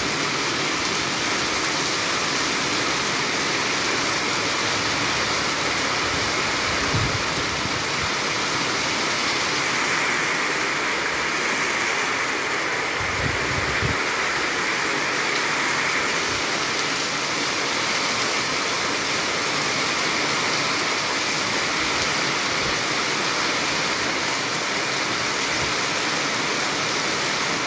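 Heavy rain falling steadily, an even hiss of falling water.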